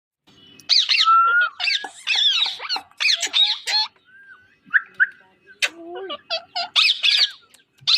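Rose-ringed (Indian ringneck) parakeet chirping and squawking in rapid bursts of high, sweeping calls, with a short quieter pause about halfway through.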